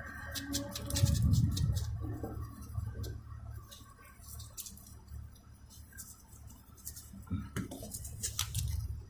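Irregular scratching and clicking of a tool scraping rust off a pair of rusty pliers.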